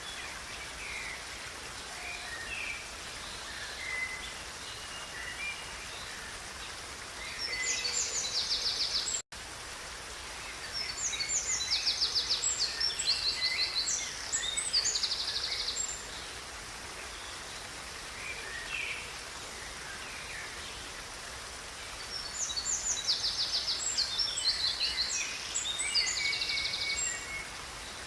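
Songbirds singing over the steady rush of a river. Three loud spells of song with fast, high trills come at about a quarter of the way in, in the middle, and near the end, with softer chirps between. The sound cuts out for an instant about nine seconds in.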